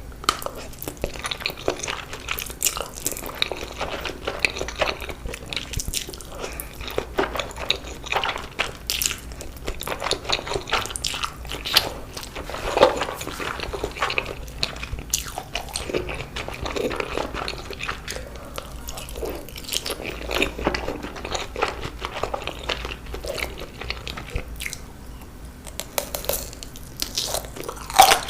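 A person eating Korean instant noodles close to the microphone: irregular chewing, biting and mouth smacks with many small wet clicks, one louder about halfway through and another near the end.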